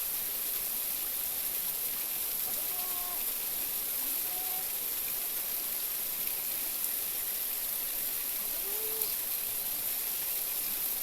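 Steady rushing of a flowing river, even and unbroken, with a few faint short sounds that arch up and down in pitch.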